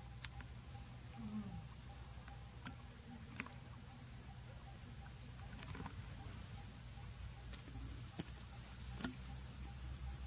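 Outdoor insect ambience: a steady high-pitched insect drone, with a short high chirp repeating every couple of seconds and scattered light clicks and ticks over a low steady rumble.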